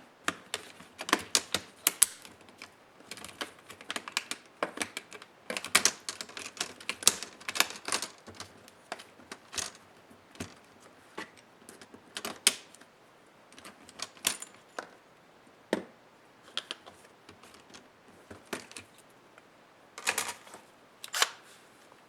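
Irregular clicks, taps and short clattering runs of small plastic and metal laptop parts being handled during disassembly by hand.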